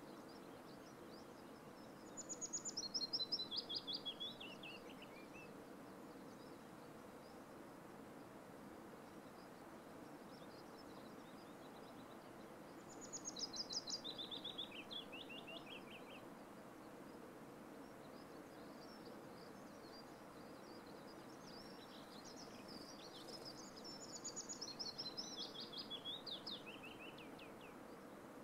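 A small songbird sings three times, each song a run of rapid trilled notes stepping down in pitch over two to four seconds. A steady faint outdoor background hiss runs underneath.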